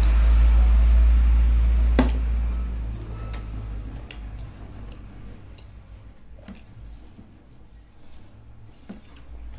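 Close-up eating sounds: wet squishing of fingers in dal and rice, with scattered small clicks, the sharpest about two seconds in. A loud deep rumble fills the first few seconds and then fades.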